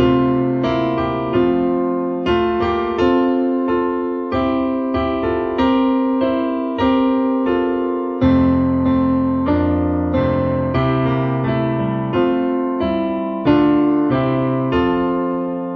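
Piano playing the postlude: notes and chords struck about once a second, each left to ring and fade.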